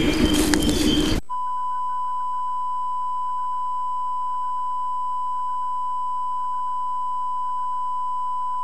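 About a second of rustling outdoor camera-mic sound cuts abruptly to a steady 1 kHz line-up tone from a Sony Betacam SP camcorder's bars-and-tone generator, which holds at an even level and stops sharply at the end. The tone marks the end of the recorded tape.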